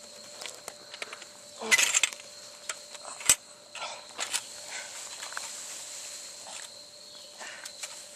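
Scattered rustles and clicks of movement, with a louder rustling burst about two seconds in and a sharp snap about a second later, over a steady high-pitched whine.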